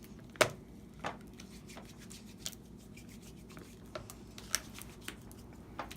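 Slime being stirred in a bowl: scattered light clicks and taps of the utensil against the bowl, the loudest about half a second in.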